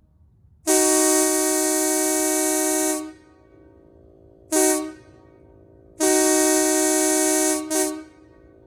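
Sparton D-2355 truck air horn sounding four blasts with a steady, multi-note tone: a long blast of about two seconds, a short toot, another long blast, and a quick toot right after it.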